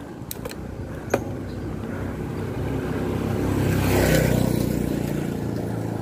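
A motor vehicle's engine passing close by, growing louder to a peak about four seconds in and then fading. A single sharp click about a second in.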